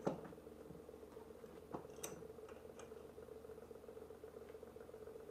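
A 3D-printed PLA wrench being set and clamped in a small metal bench vise: one sharp knock at the start, then a few faint clicks and taps as the piece is adjusted and the vise tightened, over a faint steady hum.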